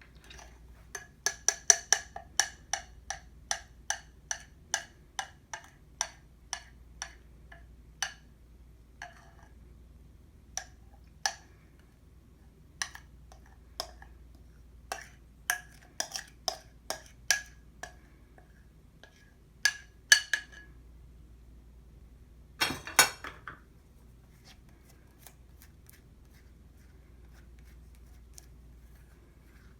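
A utensil clinking repeatedly against a bowl while batter is mixed, each tap ringing briefly. The taps come quickly, about three a second at first, then space out, with a short clattering cluster about three-quarters of the way through.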